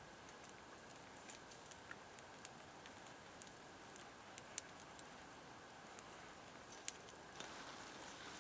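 Faint crackle of a campfire: sparse sharp pops over a low steady hiss, two of them louder around the middle.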